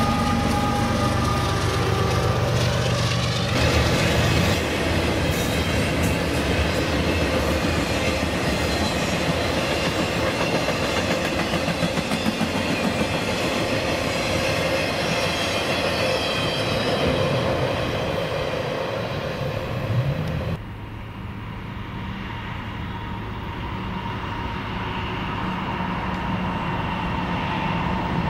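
A CSX train passing close by, its wheels clattering and rumbling over the rails, with a horn chord held for the first few seconds. About twenty seconds in the loud passing noise cuts off abruptly, leaving a quieter steady rumble.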